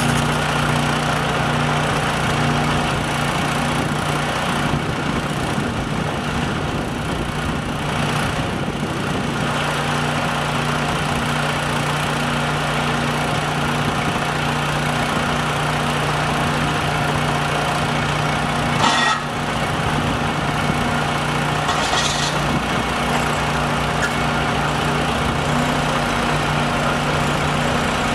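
An engine running steadily at a constant speed, a low even hum throughout, with one brief sharp click about two-thirds of the way through.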